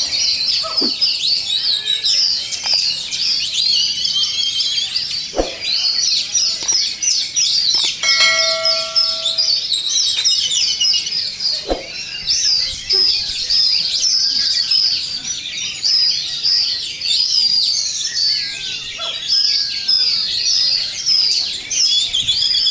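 Many songbirds singing at once in a dense, continuous chorus of overlapping chirps, trills and whistles: the atmosphere of an Indonesian songbird contest. About eight seconds in, a short steady tone with several pitches sounds over the birds for about a second and a half.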